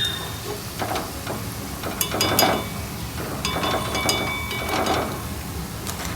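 A metal ladle clinking and scraping against an iron kadai half a dozen times, each knock ringing briefly, while medu vada fry in hot oil.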